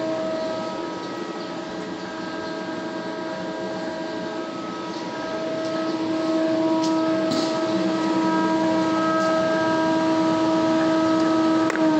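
A 20-inch automatic thickness planer running at steady speed, its motor and cutterhead giving a steady pitched hum with a few short ticks in the middle. Near the end there is a click and the pitch begins to drop as the machine starts to slow.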